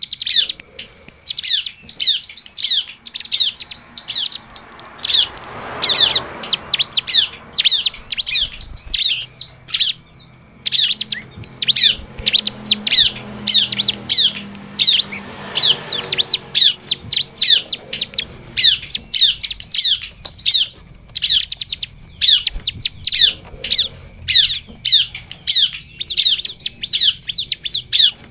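Bar-winged prinia (ciblek) singing hard: fast, loud runs of sharp chirping notes in quick phrases with short breaks between them.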